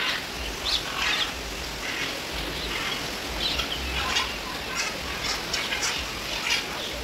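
A mix of zoo birds calling and chirping together: short, high calls follow one another in quick, irregular succession over a low background rumble.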